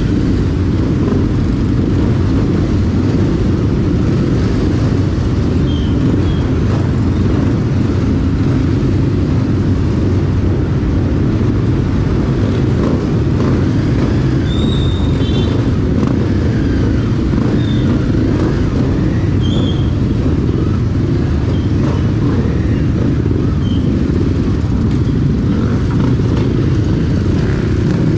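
Motorcycle on the move: a steady engine and road noise with a heavy low rumble, with a few faint short chirps above it.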